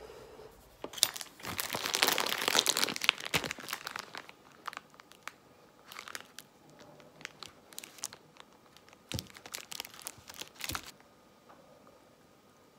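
Plastic wrap crinkling loudly as a wedge of cheese is unwrapped, strongest from about one to four seconds in, followed by scattered light clicks and rustles as the cheese is handled and sliced with a knife on the wrapper.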